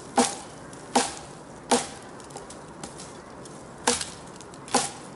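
Thick 8 mm Camillus Carbon V kukri chopping into the end of a wooden stick to sharpen it to a point. Five sharp chops: three in the first two seconds, then two more near the end.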